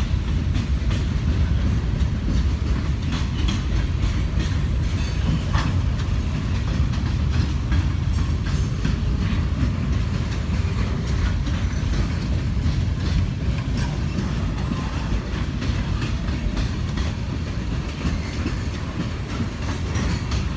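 Norfolk Southern freight train's diesel locomotives rumbling past, a steady low engine drone with scattered clicks and knocks of wheels on the rails.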